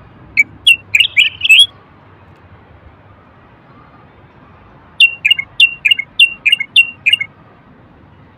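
Common bulbul song: two quick phrases of short, sharp whistled notes, a brief one about half a second in and a longer run about five seconds in.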